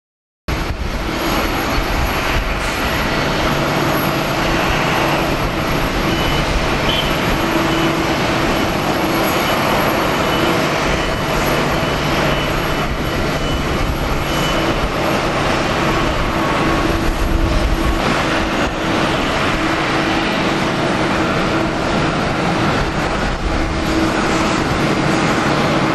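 Jet engines of a Boeing 777-300 airliner running with a loud, steady rushing noise and a faint underlying hum, cutting in suddenly about half a second in.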